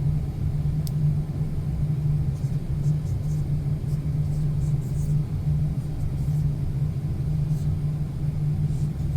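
Steady low rumbling hum with a few faint ticks.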